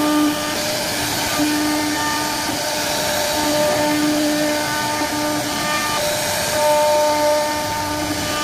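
CNC router carving a wooden door panel: the spindle runs with a steady whine over the hiss of the cutter in the wood, the whine fading and returning every second or so as the cutter's load changes.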